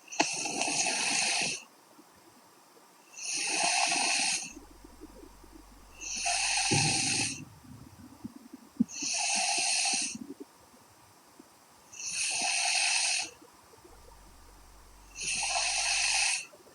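A young woman snoring in her sleep: six snores about three seconds apart, each lasting about a second and a half, with quiet breaths between.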